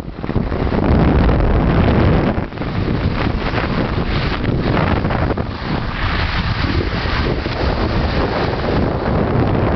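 Wind buffeting the camera's microphone as the camera moves down a ski slope: a loud, continuous rumbling hiss that dips briefly about two and a half seconds in.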